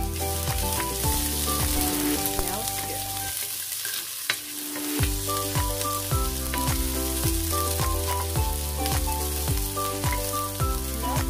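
Sliced onions sizzling in hot oil in a nonstick pot, stirred with a wooden spatula. Background music with a bass line plays over it; the bass drops out briefly around the middle.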